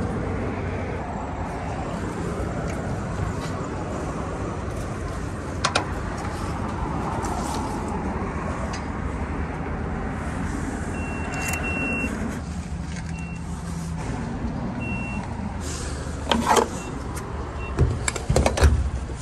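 Fuel pump keypad beeping, a quick run of short high beeps about eleven seconds in and then two single beeps, over the steady low hum of an idling engine. Near the end come a few clunks as the diesel nozzle is lifted and pushed into the truck's filler neck.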